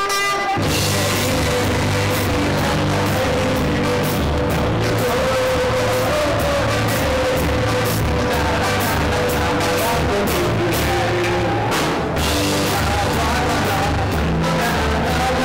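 A live rock band playing a Nepali song: electric bass, electric guitar and drum kit. The band comes in with a steady beat about half a second in.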